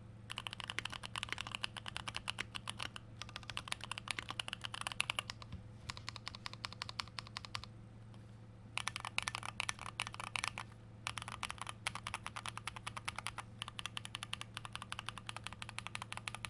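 Fast typing on a custom 75% mechanical keyboard with lubed old Holy Panda tactile switches: a steady stream of keystroke clacks in runs, with a pause of about a second some eight seconds in and shorter breaks elsewhere.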